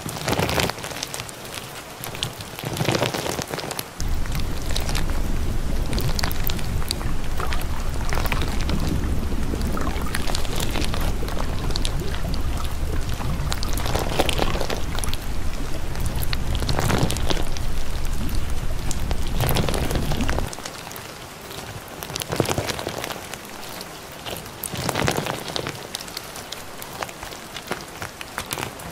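Steady rain falling, with a deep rumble underneath that starts about four seconds in and cuts off abruptly about two-thirds of the way through.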